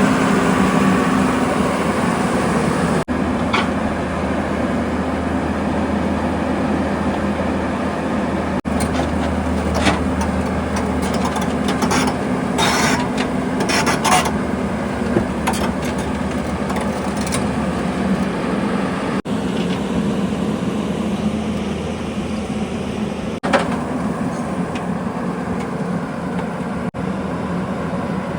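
Diesel engine of a heavy earthmoving machine running steadily under load while it works, with a cluster of sharp metallic knocks and scrapes around the middle.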